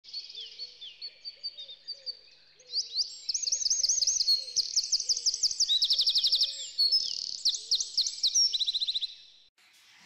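A songbird singing a fast, varied song: quieter repeated notes at first, then loud repeated rising notes and quick trills, stopping a little after nine seconds in.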